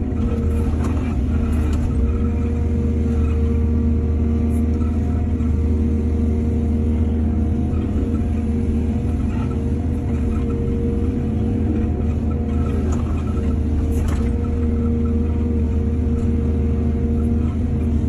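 Excavator's diesel engine running steadily under load, with a few faint clanks.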